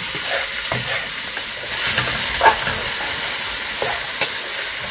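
Chopped onions sizzling in hot oil in a non-stick wok as they are stirred with a spatula. A steady hiss runs throughout, with a couple of sharp clicks of the spatula against the pan.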